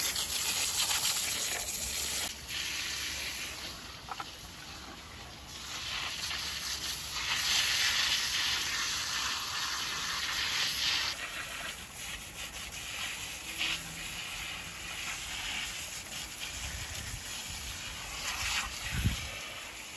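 Water from a pistol-grip garden hose spray nozzle jetting onto a freshly dug elephant-ear (taro) bulb and its roots, washing the soil off. There is a steady hiss and spatter of spray that grows louder through the middle stretch, with a brief low bump near the end.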